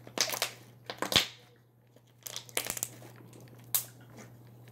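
Handling noise: four or so short rustling, scrunching bursts with quiet gaps between them.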